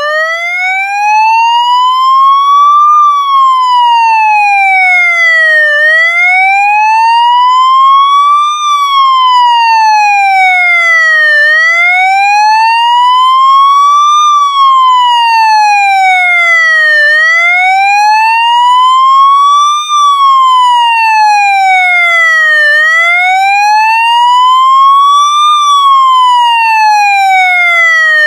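Police motorcycle siren sounding a slow wail: its pitch rises for about three seconds and falls for about three, around five times over, steady and loud.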